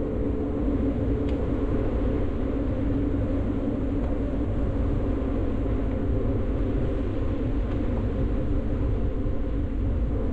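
Steady low rumble of wind buffeting the camera microphone and road noise while riding an electric bicycle.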